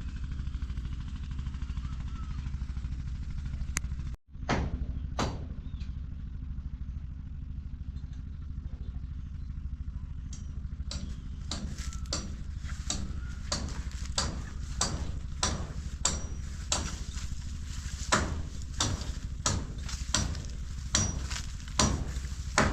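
A steady low engine drone. After a brief break, a run of sharp knocks joins it, about one or two a second, growing louder toward the end.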